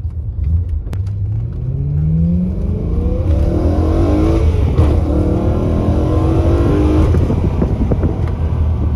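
Stage 2-tuned BMW E90 M3's 4.0-litre V8 accelerating hard, heard from inside the cabin. The revs climb, dip briefly at an upshift about three seconds in and again near five seconds, climb once more, then ease off about seven seconds in.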